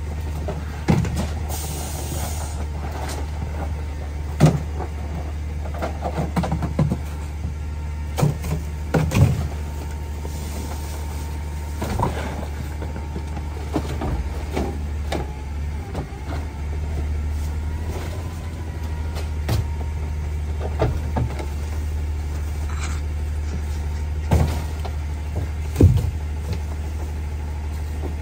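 CNG-powered Leach 2R-III rear-loader garbage truck running at a steady low idle, while plastic trash cans knock and clatter against the hopper as they are tipped and emptied, a sharp knock every few seconds.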